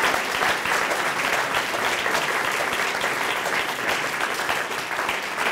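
Audience applauding, steady clapping from many hands.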